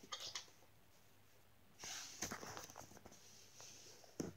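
Faint rustling and soft bumps of small plush toys being handled and set down on a table, with a couple of sharp clicks near the end.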